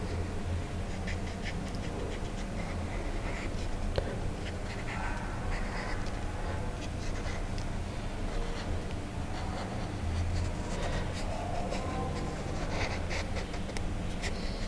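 Marker pen drawing outlines on a painted paper sheet: short, scattered scratching strokes, with a single click about four seconds in, over a steady low hum.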